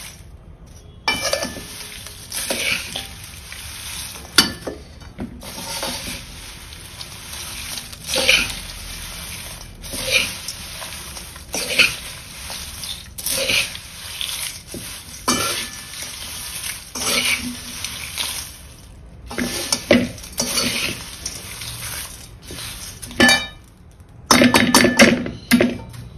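A perforated metal spoon stirring and scraping crisp, dry poha chivda around a large metal kadhai, in repeated strokes a second or two apart. There is a quick run of rattling clatter near the end.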